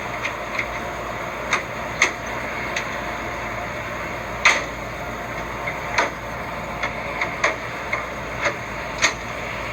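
About a dozen light clicks and knocks at irregular intervals over a steady background hiss and low hum, the loudest about four and a half seconds in.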